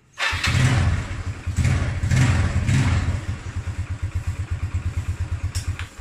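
Yamaha Mio Sporty scooter's single-cylinder four-stroke engine starting, blipped a few times, then idling with an even pulse until it cuts off just before the end.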